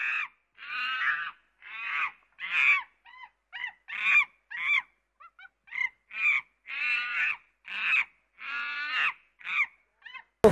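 A rapid series of short, harsh, pitched animal calls, about two a second, some longer and some clipped, with dead silence between them.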